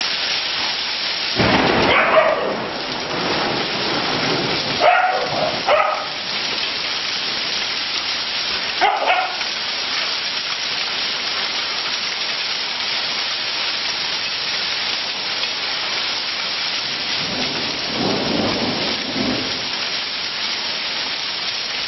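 Heavy rain mixed with hail pouring down, a dense steady hiss. A few short louder sounds stand out about two, five, nine and eighteen seconds in.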